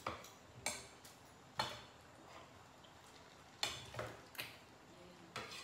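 Scattered light clinks and knocks of plates, a metal platter, cups and cutlery on a tabletop during a meal, about seven in all at irregular intervals.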